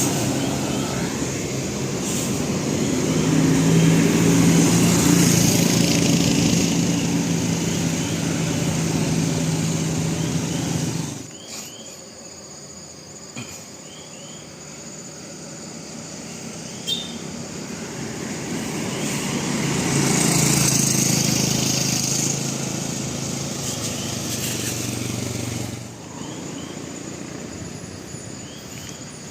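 Heavy road vehicles passing with a steady low engine drone. The first is loud and stops abruptly about eleven seconds in. After a quieter stretch a second swells up and cuts off near the end.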